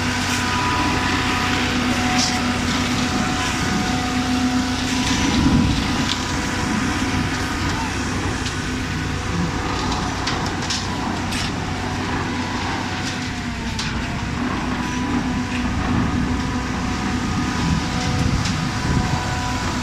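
Diesel concrete mixer pump running steadily, with a few sharp knocks scattered through.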